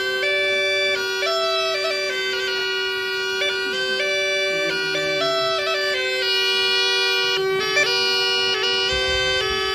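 Homemade plastic bagpipe, with an inflatable plastic bag blown through a plastic tube, playing a melody of changing notes over a steady drone.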